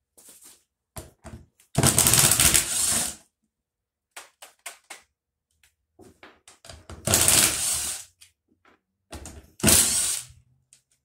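Cordless power tool run in three bursts of about a second each at the fuel tank's sending unit, with lighter clicks and knocks between the bursts.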